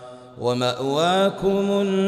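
A male reciter chanting the Quran in melodic tartil: a held note fades away, and about half a second in the voice comes back with an upward glide and then holds a steady note.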